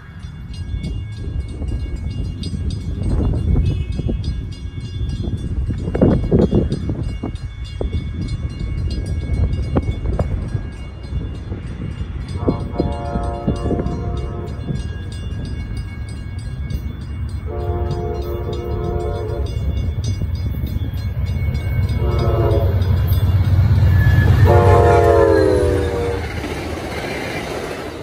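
A CTrail Hartford Line passenger train approaches a grade crossing, its low rumble growing louder. Its horn sounds the crossing signal: two long blasts, a short one, then a final long blast that bends slightly in pitch as the train reaches the crossing.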